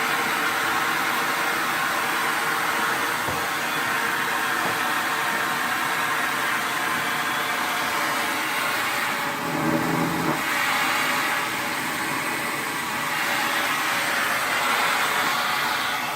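Vacuum cleaner running with a steady whooshing motor noise, with a brief lower-pitched sound about ten seconds in.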